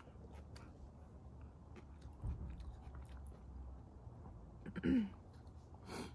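Faint chewing and mouth sounds of a person eating, with small clicks, over a low steady background rumble. A brief voiced sound rises and falls in pitch about five seconds in, and a short noisy burst comes just before the end.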